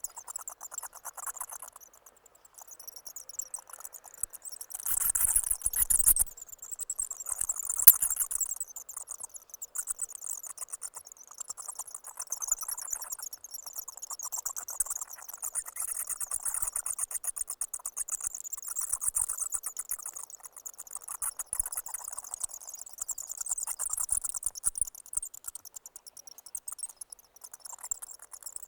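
Bats chittering: a continuous stream of rapid, high-pitched clicks and squeaks. A louder, fuller burst comes about five seconds in, and a single sharp click near eight seconds.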